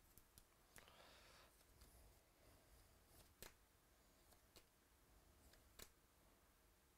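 Near silence, broken by the faint handling of Bowman baseball trading cards: a soft rustle about a second in, then a few light clicks as cards are slid and flicked one behind another.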